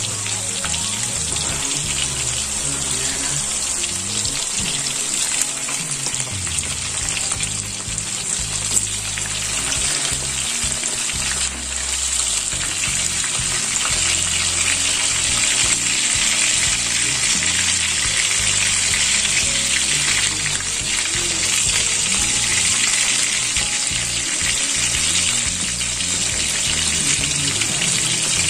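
Marinated milkfish (bangus) pieces sizzling steadily as they fry in oil in a pan, the sizzle growing a little louder about halfway through.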